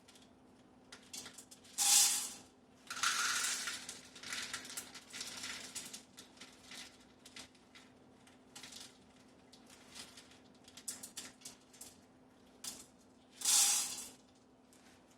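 Dry beans being scooped and poured into an Instant Pot, rattling: a sharp rattle about two seconds in, a longer pour just after, scattered small clicks, and another rattle near the end.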